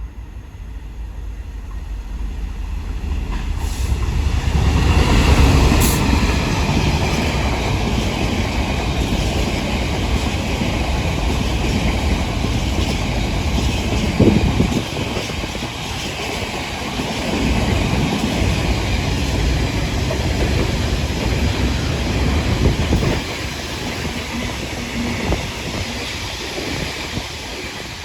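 GBRF Class 66 diesel locomotive, with its EMD twelve-cylinder two-stroke engine, passing at speed. It grows to its loudest about five seconds in. A long rake of JNA ballast wagons then clatters past, bouncing and crashing over the rails with scattered bangs, making one hell of a racket. The sound drops off sharply near the end.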